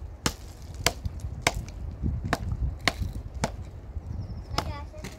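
A hand tool striking repeatedly in a work rhythm: about seven sharp chopping blows, spaced roughly half a second to a second apart.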